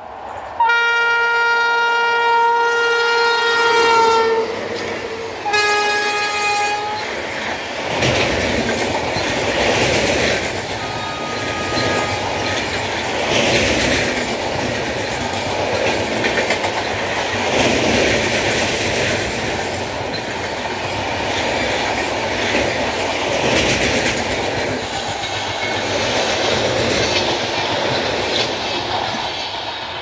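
WAP-7 electric locomotive sounding its horn, a long blast of about four seconds and then a shorter one, as an express train approaches. The passenger coaches then roll past with a steady rumble and a clickety-clack that swells each time a coach's wheels go by.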